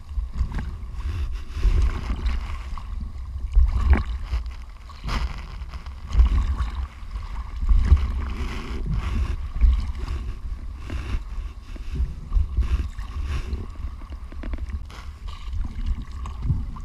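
Choppy sea waves slapping and splashing around a diver floating at the surface, with water washing over the camera housing at the waterline. A low, uneven rumble of water and wind buffeting runs under the irregular sharp splashes.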